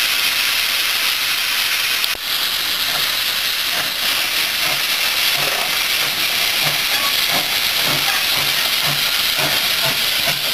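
SE&CR C Class steam locomotive No. 592 hissing steam strongly as it moves slowly off. A low regular beat, about twice a second, comes in a few seconds in.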